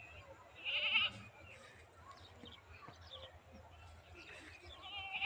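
Goat bleating: one short quavering bleat about a second in and another near the end, with faint bird chirps in between.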